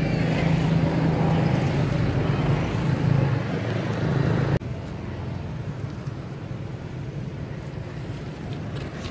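Steady low hum of outdoor background noise, with no clear separate events. It drops abruptly to a quieter steady hiss about four and a half seconds in.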